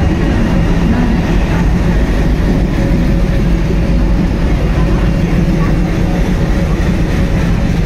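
Indian Railways diesel locomotive rolling slowly past along the platform, its engine running with a loud, steady low rumble as it pulls the train in.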